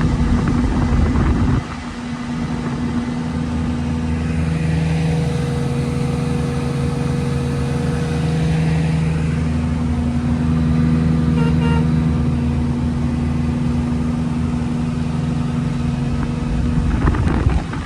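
Engine running at a steady speed, its pitch holding even. It is louder for about the first second and a half and again briefly near the end.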